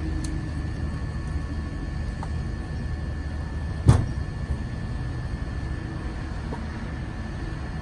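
A single sharp knock about four seconds in, a piece of split hickory firewood knocking against the stack, over a steady low hum with a faint high whine.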